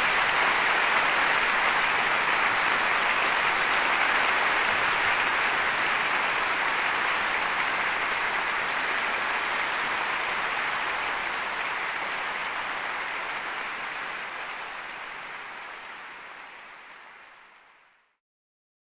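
Concert hall audience applauding, a dense steady clapping that fades out gradually to silence near the end.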